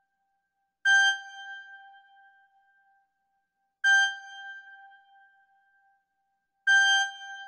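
A single high keyboard note at the same pitch struck three times, about three seconds apart, each ringing out and fading to silence before the next.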